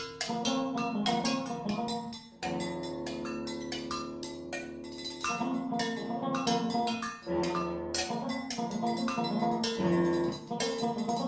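A drums-and-percussion and guitar duo playing live: frequent sharp percussion strikes that ring on, over sustained, ringing guitar notes.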